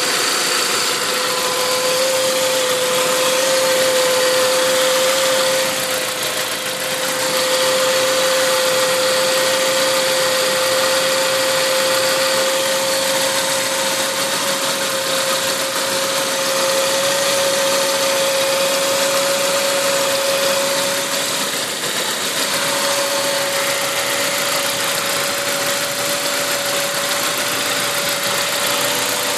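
Saab 9-5 turbocharged engine running at idle with a strong, steady whine throughout, briefly dipping twice. This is the strange noise whose source the owner cannot find.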